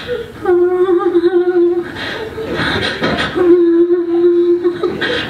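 An improv performer's voice making crude sound effects: two long tones held at one steady pitch, with rough breathy bursts between them.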